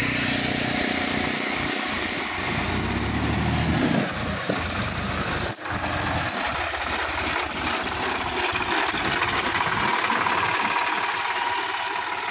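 Sonalika DI-50 RX tractor's diesel engine running steadily under load as the tractor pulls up out of a flooded field and drives past close by, with a brief dropout in the sound about five and a half seconds in.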